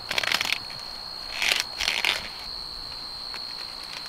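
Sweet-corn stalks and leaves rustling and crackling as ears of corn are pulled off by hand, in two short bursts.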